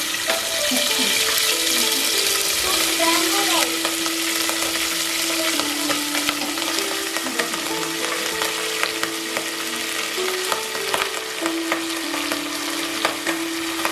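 Cooked bamboo rice sizzling in hot ghee in a pan while it is stirred, with a steady frying hiss and frequent light clicks of the spoon against the pan. Soft background music with long held notes plays underneath.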